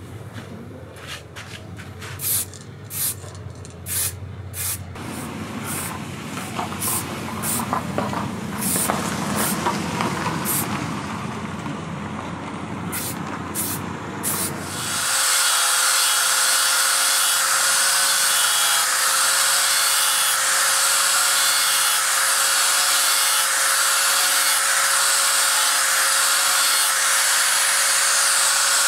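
An aerosol spray-paint can hissing in a series of short bursts. About halfway through, an angle grinder with a sanding disc starts up and runs steadily with a high whine, grinding the steel edge of an axe head.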